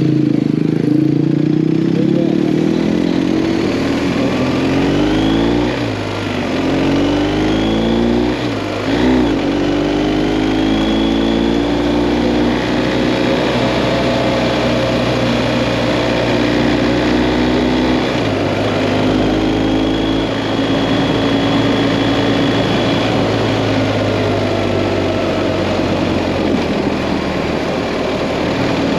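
BMW GS Adventure motorcycle engine running under way. Its pitch rises and falls with throttle and gear changes through the first ten seconds, then holds steadier, over constant wind rush.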